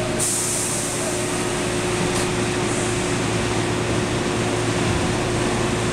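JR West 221 series electric train standing with its doors open, its onboard equipment and roof air conditioners humming steadily with a fixed tone. A short hiss sounds just after the start.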